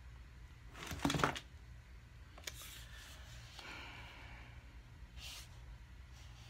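Faint handling noises from a cardboard makeup palette box being picked up and held up: a short rustle about a second in, a single click, then soft rustling, over a low steady hum.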